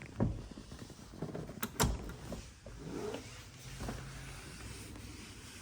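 Truck seat being moved and handled in the cab: a few sharp clunks and knocks, the loudest about two seconds in, with rattles and a short creak.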